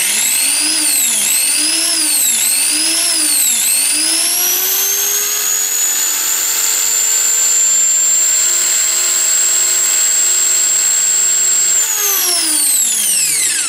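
A 2.2 kW angle grinder belt-driving a homemade cylinder-honing spindle. Its high whine surges up and down four times as the motor is pulsed, then climbs to a steady top speed for several seconds and winds down near the end. The rig is spinning far faster than its builder wanted.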